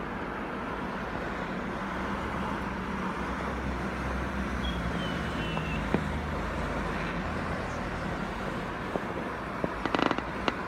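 Steady low rumble of a motor vehicle's engine, swelling and fading, with the hiss of outdoor background noise. Near the end comes a quick cluster of distant firework bangs and crackles.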